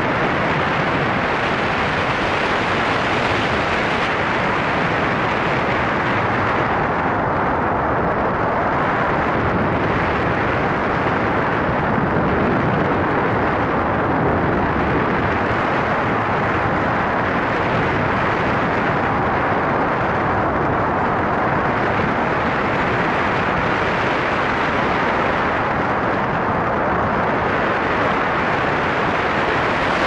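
Steady loud roar of a foot-launched powered hang glider in flight, heard on its onboard camera: engine and propeller noise mixed with rushing air, the higher hiss fading and returning a few times.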